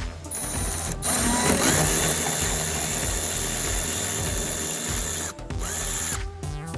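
A small electric power tool's motor whirring steadily for several seconds, with a short break near the end.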